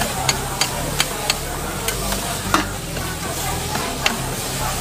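Noodles sizzling on a flat-top teppanyaki griddle as two metal spatulas toss and stir them, the blades clacking and scraping on the griddle at irregular moments, about seven times.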